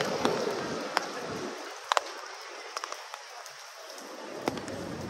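Wet city street ambience on a rainy day: a steady hiss with scattered sharp ticks and taps. The low rumble fades out for a few seconds in the middle.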